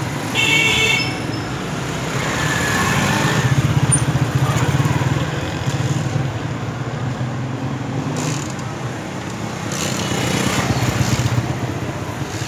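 Small motorcycles riding along the street and passing close by, their engines running in a steady low putter that swells twice as bikes go by, over general street noise.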